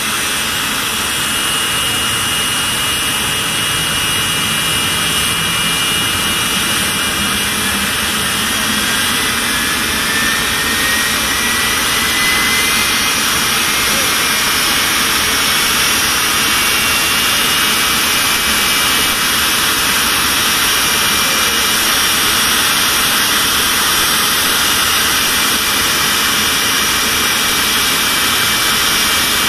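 Jet engine mounted on a vintage fire truck, running with a loud, steady rush and a high whine. About nine seconds in, one whine tone rises in pitch over several seconds as the sound grows slightly louder.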